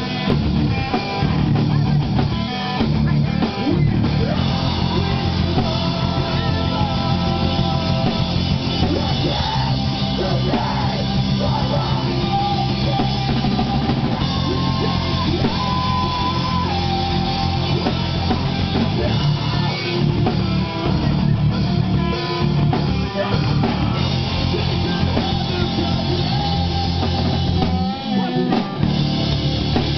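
Rock band playing live, with drum kit, guitar and singing.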